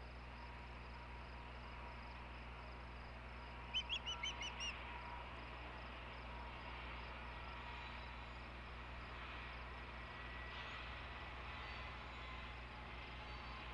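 An osprey gives a quick series of about six high chirps about four seconds in, each fainter than the one before.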